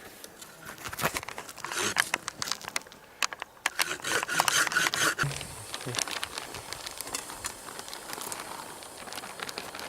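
Crinkling and rustling of bags and camping gear being handled and unpacked, with irregular clicks and crackles that are busiest in the first half.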